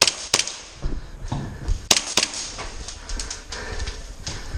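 Airsoft gunfire: scattered sharp single cracks, two in quick succession at the start, another pair about two seconds in, and a few fainter clicks after three seconds.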